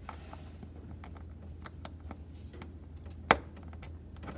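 Small clicks and taps of plastic parts being handled on an equipment control panel while a membrane ribbon cable is fitted, with one sharp, louder click about three seconds in. A steady low hum runs underneath.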